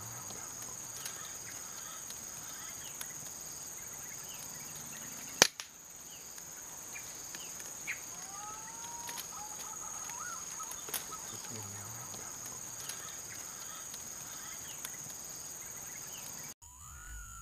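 Tropical forest ambience: a steady high-pitched insect drone, with one sharp crack about five seconds in and faint whistled bird calls rising and falling near the middle.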